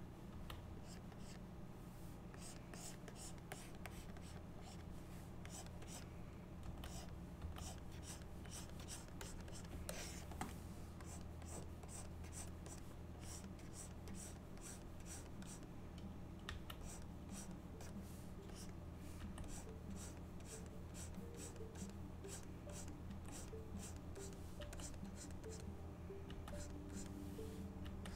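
Plastic stylus tip scratching across a drawing tablet in quick, irregular sketching strokes, over a steady low hum.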